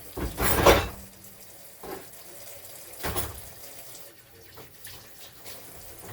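Water splashing in a kitchen sink in short bursts: a loud one just after the start, smaller ones about two and three seconds in, with quieter running water between.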